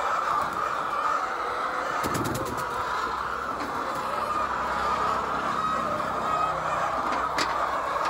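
Steady din of a large flock of laying hens clucking together in a poultry shed, with a short rattle of clicks about two seconds in.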